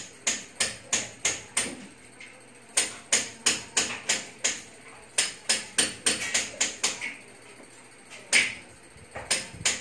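Hammer blows in quick runs of about three strikes a second, with short pauses between the runs.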